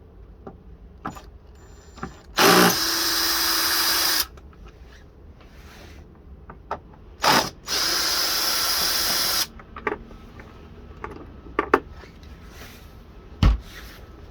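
A power drill runs twice, about two seconds each time, backing out the two screws that hold the light housing. A few light clicks and a sharper knock follow near the end.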